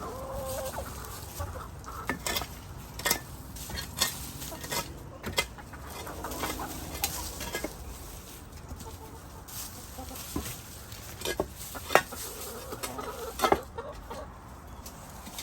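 Backyard hens clucking softly, over a scatter of sharp knocks and scrapes, the loudest two near the end.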